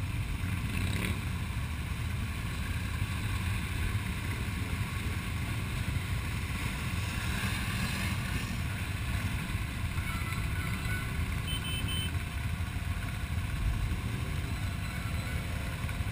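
Quad (ATV) engines idling, a steady low rumble.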